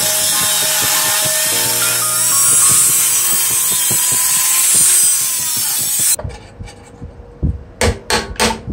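A power tool cutting material, a dense, steady hiss over background music. It stops abruptly about six seconds in, leaving the music and a few sharp knocks.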